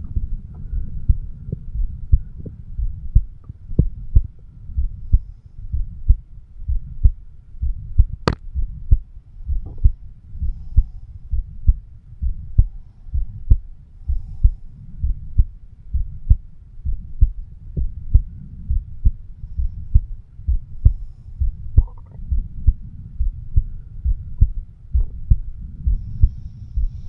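Human heartbeat picked up through a homemade microphone stethoscope: steady paired lub-dub beats, low-pitched, a little more than one a second, over a low hum. A single sharp click about eight seconds in.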